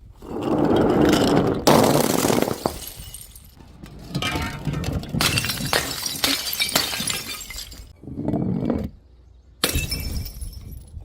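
Glass bottles shattering, several separate crashes one after another, with shards clinking and ringing.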